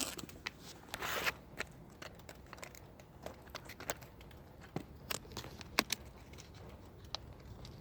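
Small packaging of a lock pick tool being opened and handled: faint crinkling with a short rustle about a second in and scattered light clicks.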